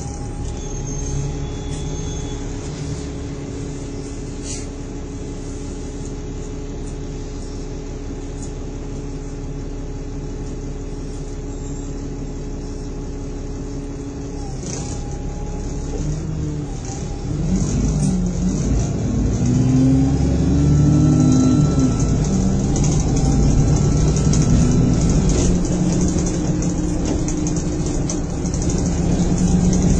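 Bus engine heard from inside the saloon, idling steadily, then after a short hiss about halfway the bus pulls away: the engine note gets louder and rises and falls through the gears as it accelerates.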